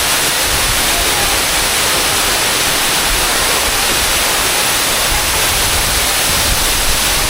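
Waterfall pouring at close range: a loud, steady rush of falling water.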